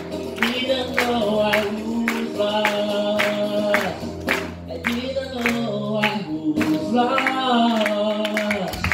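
Steel-string acoustic guitar strummed in a steady rhythm, about two strokes a second, with singing over it.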